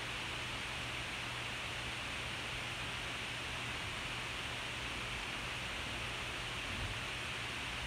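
Steady hiss with a faint low hum underneath, unchanging throughout: the background noise of a poor-quality recording.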